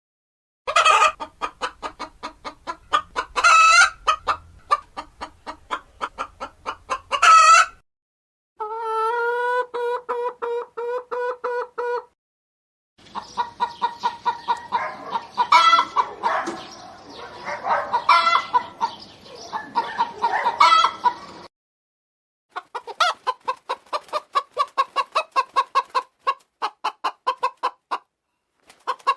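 Hen clucking in fast runs of short notes, broken now and then by louder, higher squawks. The sound comes in four separate takes, with short silent gaps at about 8, 12 and 22 seconds in.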